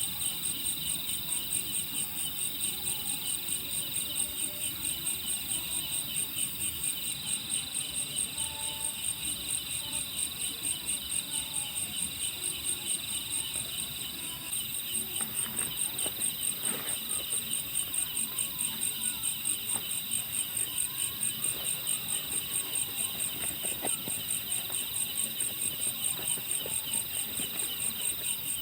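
A chorus of insects, chiefly crickets, chirping in a steady, evenly pulsing high trill. A few faint knocks come about halfway through.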